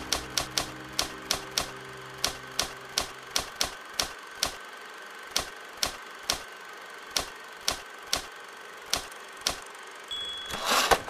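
Typewriter keystroke sound effect, single clacks at about three a second with uneven spacing. Near the end comes a bell-like ding over a short rising rush of noise.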